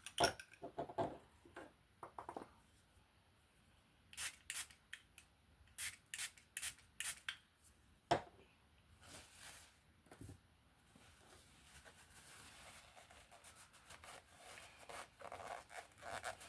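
Quiet handling and rubbing sounds, with a run of short, sharp spritzes from an alcohol spray bottle about a third of the way in.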